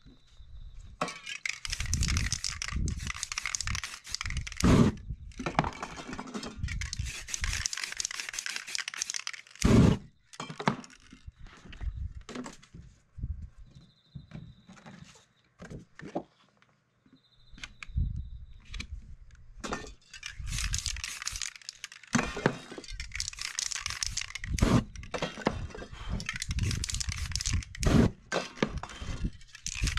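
Aerosol spray-paint cans hissing in long bursts, between them paper masks crinkling and tearing and knocks of handling on the work surface. Near the end a hissing burst comes with flames flaring across the canvas.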